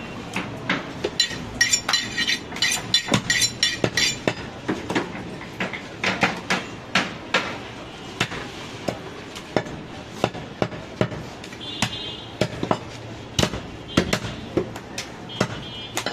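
Butcher's cleaver chopping mutton on a round wooden log chopping block: sharp, irregular chops, a few a second, with the blade thudding through meat and bone into the wood.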